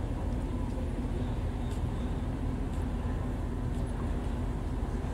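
Steady low mechanical drone with one constant hum tone running through it, unchanging throughout.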